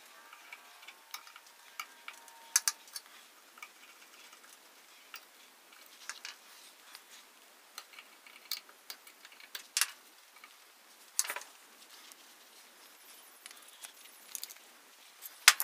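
Scattered clicks, clinks and knocks of an antique hand drill's metal parts as they are handled, wiped with a rag and set down on a workbench. The loudest sharp knock comes near the end.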